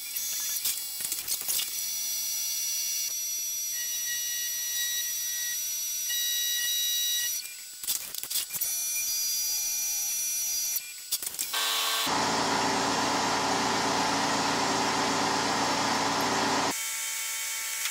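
Tormach 1100MX CNC mill running a machining cycle on a titanium workpiece: a steady high spindle whine with tools cutting the metal. It breaks off and changes abruptly a few times, and the loudest stretch, from about two-thirds of the way in until shortly before the end, is a rougher, fuller cutting sound.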